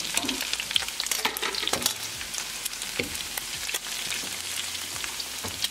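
Pork back ribs sizzling in their rendered fat in a frying pan, a steady hiss with many small crackling pops.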